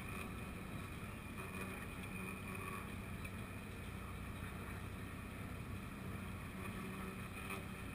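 A sailboat's engine hums steadily at a constant speed while the boat motors along, with water washing past the hull and wind on the microphone.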